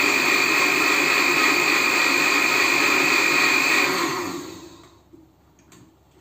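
Countertop blender running at speed on a thin yogurt drink, a steady whirring with a high whine. About four seconds in it is switched off and the motor winds down over about a second.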